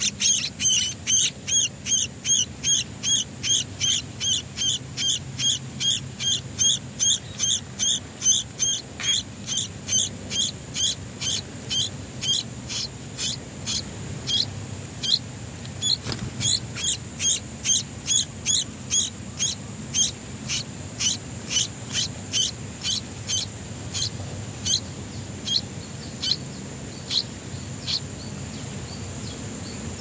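Yellow-vented bulbul nestlings begging for food: a fast, even series of short, high chirps, about two to three a second, growing weaker and sparser over the last third.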